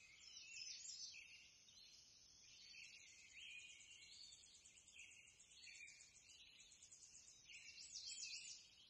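Near silence, with faint, high-pitched bird chirps coming in short bouts.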